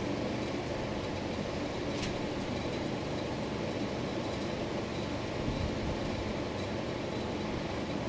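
Hugger ceiling fan running steadily: a constant rumbling whoosh from the spinning blades and motor, with a faint thin high whine. A single short click about two seconds in.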